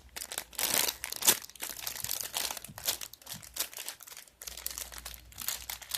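Crinkling and rustling of plastic being handled, in irregular bursts of varying loudness.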